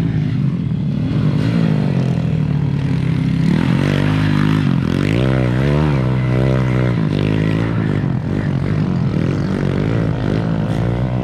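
Off-road motorcycle engine revving, its pitch rising and falling again and again as the throttle is worked, with the busiest rise-and-fall run in the middle.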